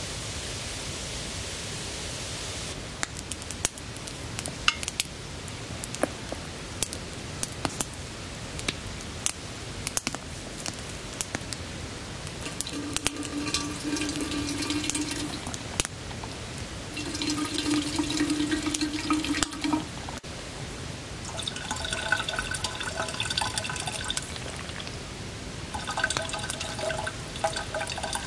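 A steady hiss at first, then a wood campfire crackling with sharp pops, then water poured from a kettle into a cup in four separate pours of two to three seconds each, each with a clear pitched pouring tone.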